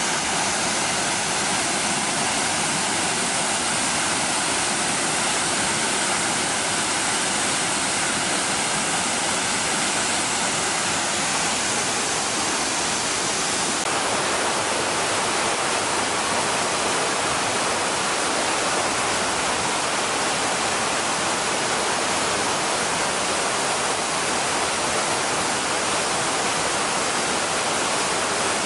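Waterfall pouring: a steady, full rushing of falling water, its tone shifting slightly about halfway through.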